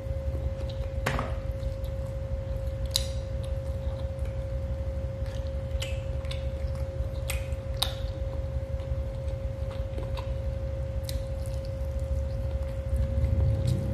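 Eating sounds from a man eating grilled chicken with his hands: scattered short smacks and clicks of chewing and lips. They sit over a steady low hum and a constant steady tone, and music comes in near the end.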